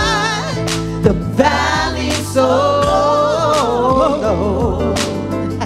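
Live band music with women's voices: a held vocal note with vibrato dies away about half a second in, then wordless sliding vocal runs and harmonies from backing singers over a steady bass line and percussion hits.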